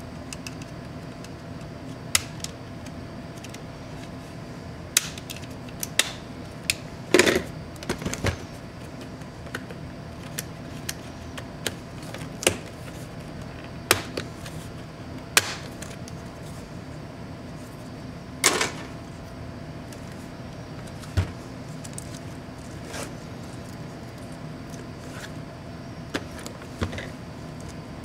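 Scattered clicks, taps and knocks of MSI GE76 Raider laptop casing parts being handled and the hinge cover along the display lid being pried off, irregular and a few seconds apart, the loudest about seven and eighteen seconds in. A steady low hum runs underneath.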